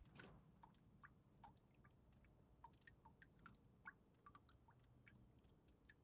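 Near silence, broken by a scatter of faint, short clicks and ticks.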